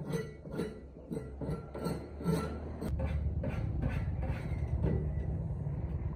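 A steady low mechanical rumble of heavy plant machinery sets in about three seconds in and keeps going, after a run of short, repeated sounds coming about twice a second.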